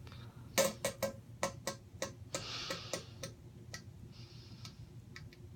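Diarrhoea passing into a toilet bowl: irregular drips and plinks into the water, with two brief hissing spurts about two and a half and four seconds in. It is the loose, liquid stool of antibiotic-induced diarrhoea from a Z-Pak (azithromycin) course.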